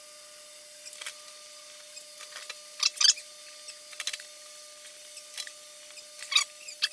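Small metal clicks and scrapes of nuts being handled and threaded onto bolts along a tank bracket, in short irregular bursts, the loudest about three seconds in.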